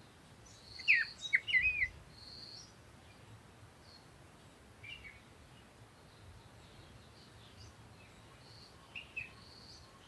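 Birds singing in a garden: a loud phrase of quick sweeping notes about a second in, softer calls near the middle and two short notes near the end. Behind them a high, thin note repeats every second or two.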